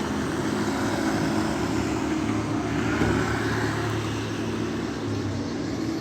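An engine running steadily with a low hum, swelling slightly about halfway through.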